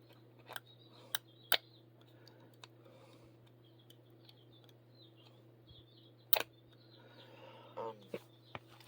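A few sharp clicks and taps of a plastic rotary-cutter blade box and its blades being handled while one blade is worked loose, the loudest about six and a half seconds in. Faint bird chirps and a steady low hum run underneath.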